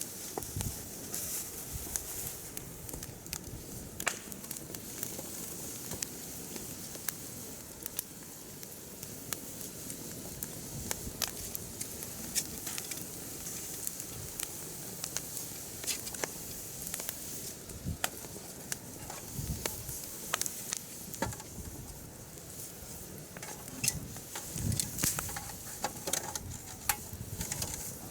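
Campfire of firewood burning in a mesh fire pit: irregular sharp crackles and pops over a steady hiss of flames, the pops a little more frequent near the end.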